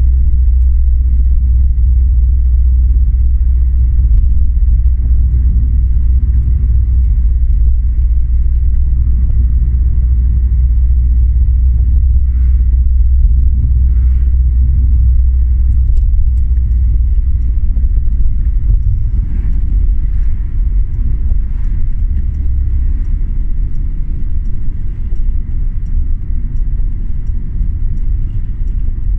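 Steady low rumble of road and engine noise inside a moving car's cabin. It eases a little about two-thirds of the way through.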